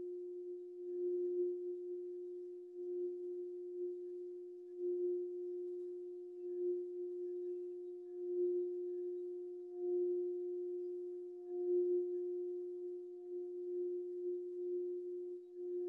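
Singing bowl played by circling a mallet around its rim: one steady ringing tone that swells and fades about every two seconds as the mallet goes round.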